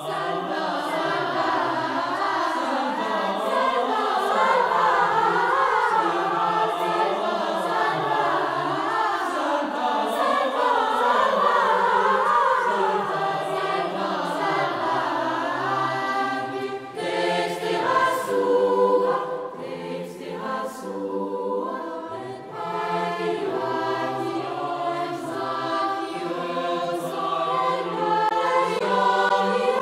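Background music: a choir of several voices singing, with a wavering, ornamented melody that gives way to more separate held notes a little over halfway through.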